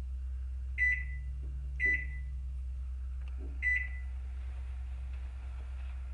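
Three short, high beeps from a microwave oven's keypad as its buttons are pressed to set a two-minute cook time, the first two about a second apart and the third about two seconds later, over a low steady hum.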